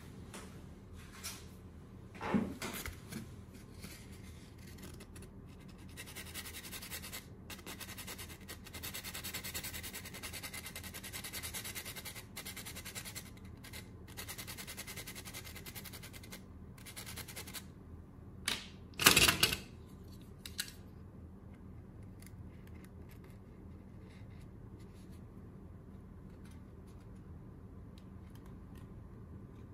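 Pencil lead scraped back and forth on sandpaper, a scratchy rasping that runs for about ten seconds with brief pauses, grinding the graphite into black powder. A few sharp knocks from handling come before and after it.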